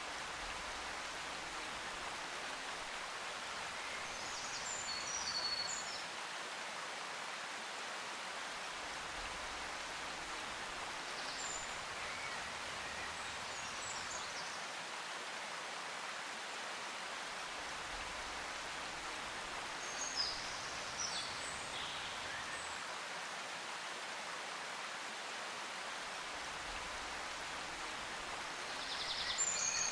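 Outdoor ambience: a steady rushing noise with short, high bird chirps a few times, the loudest cluster near the end.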